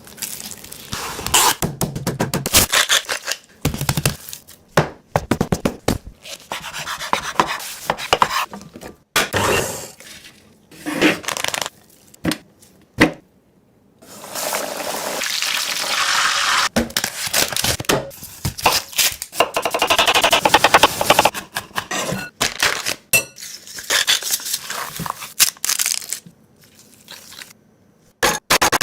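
Close-up kitchen preparation sounds in quick edited snippets: sharp knocks and taps of utensils on dishes and a cutting board, scraping, and longer stretches of rustling, crackling noise.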